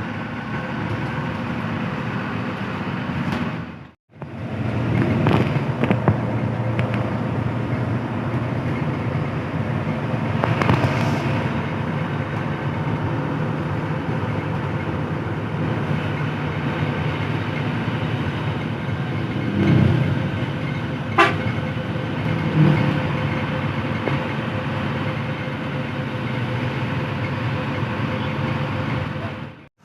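Hino AK8 front-engined bus on the move, its diesel engine and road noise heard from the front of the cabin. A horn gives a short toot about two-thirds of the way in.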